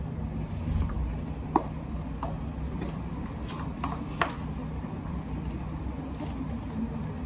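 A steady low hum with a few short, sharp light clicks and taps, the sharpest about a second and a half in and about four seconds in.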